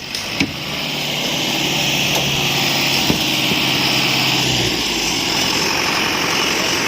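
Small engine of construction machinery running steadily, with a low hum that drops out about four and a half seconds in.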